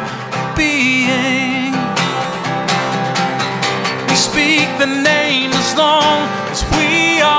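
Live acoustic song: a strummed acoustic guitar with a man's voice holding long wordless sung notes with vibrato.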